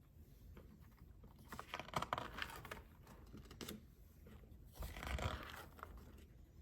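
Rustling, scraping and small knocks of a cardboard desk calendar and its wrapping being handled on a table, in two short bursts about two seconds and five seconds in.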